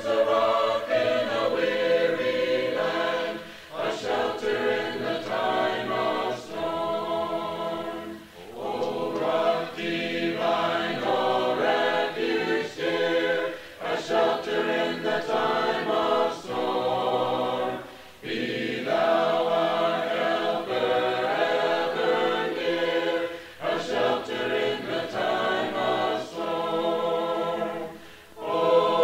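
A choir singing a hymn a cappella, in long held phrases with short pauses for breath between them.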